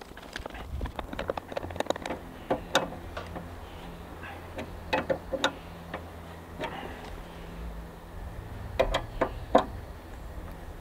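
Scattered sharp clicks and taps of metal as cables are handled and fitted to the terminals inside a metal electrical meter base, several clustered together about two seconds in, five seconds in and near the end.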